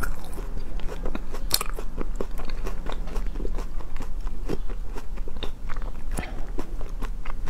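Close-miked biting into and crunchy chewing of a chocolate-coated crispy bar: a steady stream of sharp, irregular crackles.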